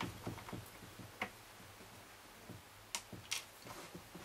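Screwdriver driving a screw back into a Bose SoundDock Original, a faint run of light, irregular clicks and ticks, the sharpest about a second in and a cluster near three seconds in.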